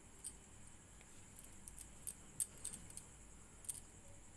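Light, irregular clicks and ticks from hands working a crochet hook through wool yarn, over a faint steady high hiss.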